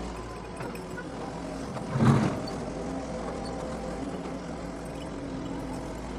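Doosan DX140 excavator's diesel engine running steadily under work, with one short loud thump about two seconds in.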